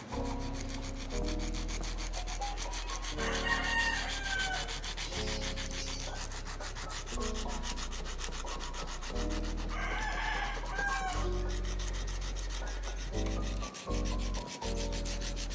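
Background music with sustained chords, and a rooster crowing twice, about three and a half seconds in and again about ten seconds in.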